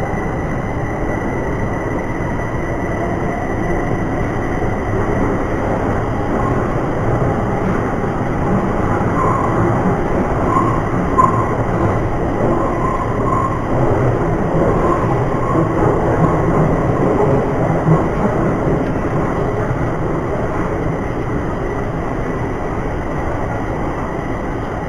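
Bucharest Metro train running between stations, heard from inside the carriage: a steady rumble of wheels on rails and running noise. A few short, higher squeaks come through around the middle.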